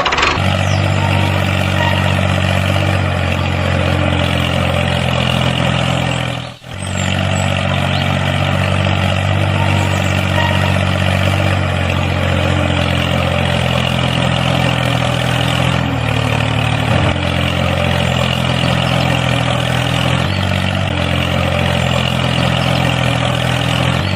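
Heavy truck engine running steadily at a low idle, with a short break about six and a half seconds in.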